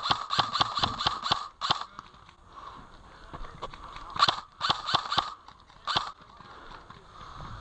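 Airsoft rifle firing in rapid bursts of sharp clicking shots, about seven a second: a burst of about two seconds at the start, a shorter burst about halfway through, and one more brief shot near the end.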